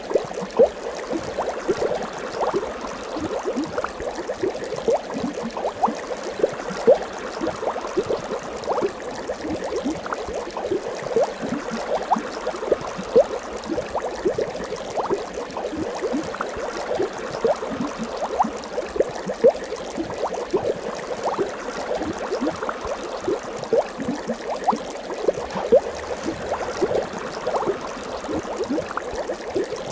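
Bubbling-water sound effect: a dense, steady stream of small bubble blips, many a second.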